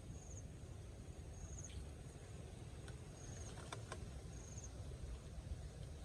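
A small creature's short, high chirp repeated about five times, a second or two apart, over a steady low rumble, with a few faint clicks around the middle.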